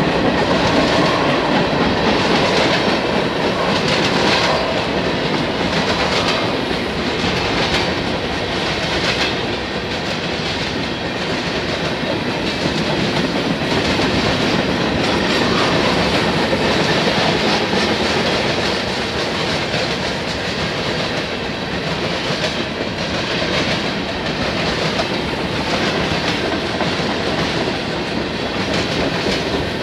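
Freight train tank cars rolling past close by: a steady noise of steel wheels on rail, with repeated clicks as the wheels cross the rail joints.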